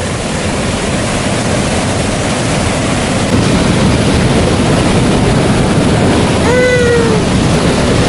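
Waterfall rushing over rocks close by, a loud steady noise of white water, with one short vocal call near the end.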